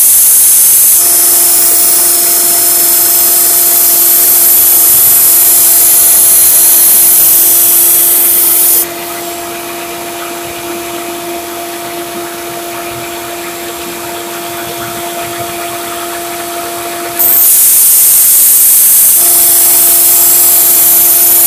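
Grizzly 1x30 belt sander with a new 120-grit belt running, grinding a fresh edge bevel into a blunt steel machete blade. There is a long, loud hissing grind, then a quieter stretch where the sander hums on its own, then another loud grinding pass near the end.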